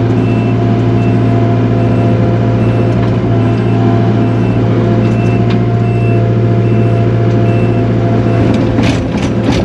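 Takeuchi TL240 skid steer's diesel engine running loud and steady from inside the cab, with its backup alarm beeping at a regular rate as it reverses. A few clanks near the end.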